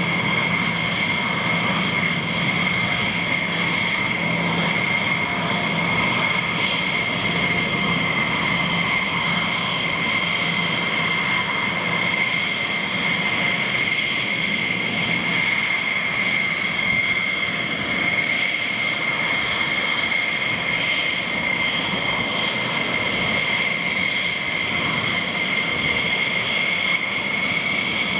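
F-16 Fighting Falcon jet engines running at taxi power, a steady loud rush with a constant high-pitched whine.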